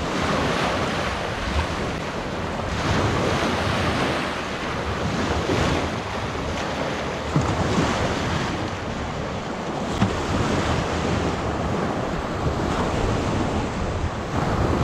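Waves washing on a shore, with wind buffeting the microphone in a low rumble; the rushing noise swells and eases gently.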